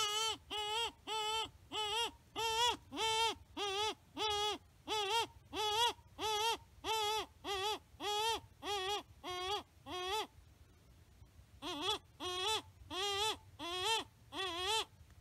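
Predator call used to lure coyotes, sounding a wavering, whining distress cry over and over, about twice a second. It stops for a second or so about two-thirds of the way in, then starts again.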